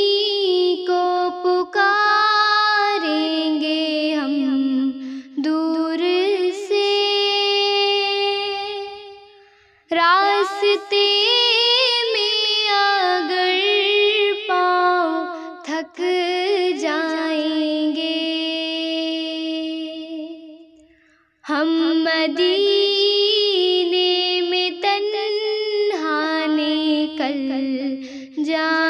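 A young girl singing an Urdu naat solo, with no instruments: three long, ornamented melodic phrases, each fading out into a brief pause before the next begins.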